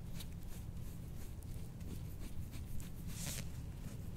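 Faint, repeated rasping strokes of a handheld soft-tissue scraping tool gliding over oiled skin on a back, with one louder hiss about three seconds in. A low, steady room hum runs underneath.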